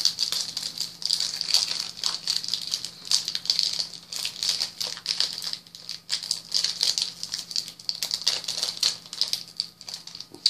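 Trading-card booster pack wrapper crinkling and rattling as hands handle it and pull at it, trying to tear it open: a dense, irregular crackle that keeps on.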